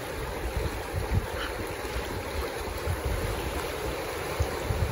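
Fast river water rushing steadily past the logs, with wind gusting on the microphone in low rumbles.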